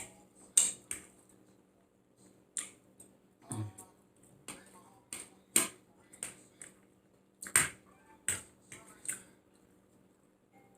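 Close-miked wet chewing and lip smacking while eating saucy barbecue chicken drumlettes: about a dozen sharp, irregular smacks and clicks, with a short low 'mm' hum partway through.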